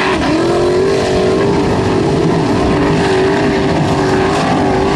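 A Formula Offroad buggy's engine held at high, nearly steady revs as it climbs a steep loose-gravel slope, wheels spinning and throwing gravel. The revs dip briefly just after the start, then climb back and hold.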